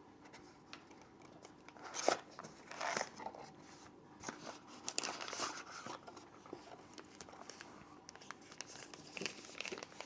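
Packaging being opened and handled by hand: irregular rustling and crinkling with small clicks and knocks, the loudest rustles coming about two and three seconds in.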